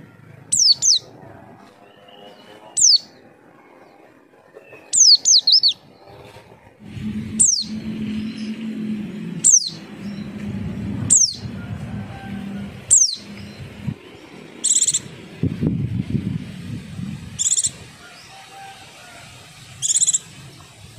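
White-eye (pleci) calling: sharp, high chirps that slide down in pitch, repeated about every two seconds, then three short buzzy notes in the second half. A low hum runs under the calls through the middle.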